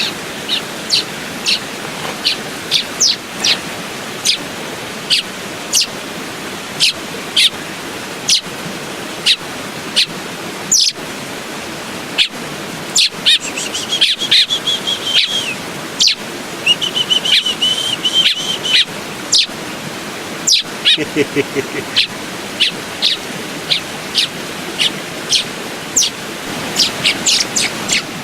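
Young American robin chirping over and over: short, high, downward-sliding chirps about one or two a second, with two longer wavering calls in the middle. A steady rush of creek water runs underneath.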